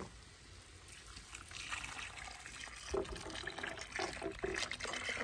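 Mole sauce trickling and splashing in a cooking pot, faint at first and fuller from about two seconds in.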